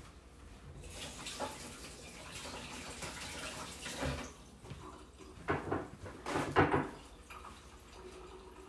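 Kitchen tap running into a sink as hands are washed under it, followed by a few short knocks and clatters in the second half.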